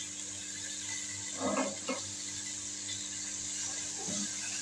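Chicken pieces and onions frying in oil in a metal pan, with a steady sizzle. A metal slotted spoon scrapes against the pan a few times as the chicken is stirred.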